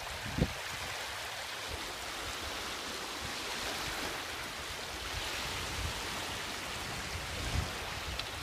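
Steady wash of choppy, wind-driven lake water lapping at the shore, with splashing as a person wades through the shallows; a single low thump about half a second in.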